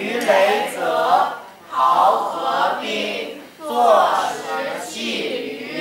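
Several voices reciting a classical Chinese text aloud together in a sing-song chant, phrase by phrase, with two short pauses between phrases.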